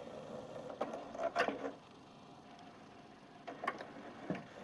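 Sony CDP-C325 five-disc carousel CD player turning its carousel on a freshly replaced drive belt: a steady motor whir with clicks and knocks as it indexes between disc positions. It stops briefly about two seconds in, then clicks and starts turning again near the end.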